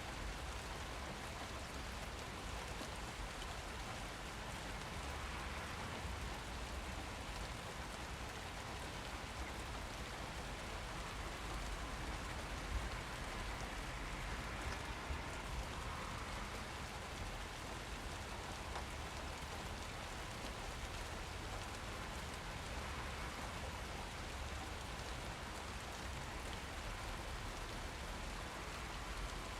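Steady rain falling and pattering on surfaces, with a constant low rumble beneath and a few louder drips.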